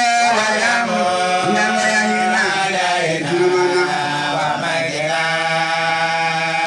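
A man's voice chanting through a microphone in long, held notes that slide from one pitch to the next: a devotional chant.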